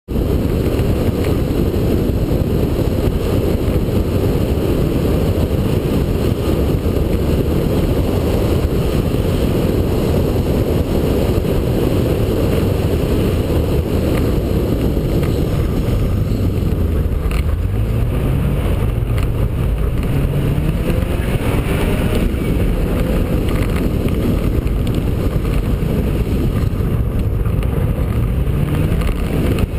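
Subaru Impreza rally car's flat-four engine pulling along a gravel stage, heard from inside the car, over the steady noise of tyres on loose gravel. In the second half the revs climb several times as it accelerates.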